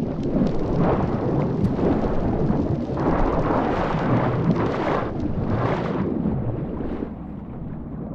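Deep, rushing underwater rumble that swells and fades in waves, strongest about three seconds in and again near six seconds.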